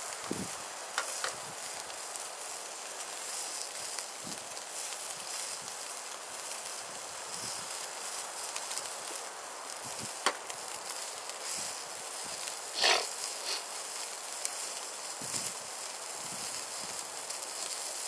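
Campfire burning: a steady hiss with scattered sharp pops and crackles, the loudest about 13 seconds in.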